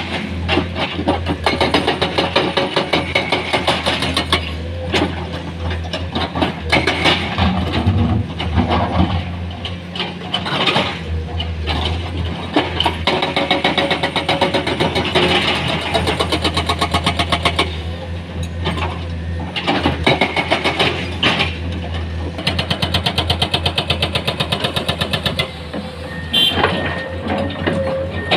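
Komatsu excavator's diesel engine running steadily under load, with repeated knocks and stretches of fast, even rattling from the working machine.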